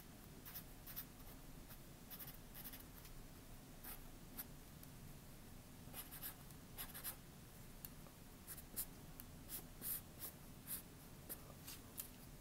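Sharpie felt-tip marker drawing on paper: faint, short, irregular scratching strokes of the tip across the sheet.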